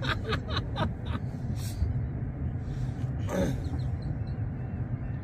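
Wind buffeting the microphone, a steady low rumble. A run of quick clicks comes in the first second, and a brief vocal sound falling in pitch comes about three seconds in.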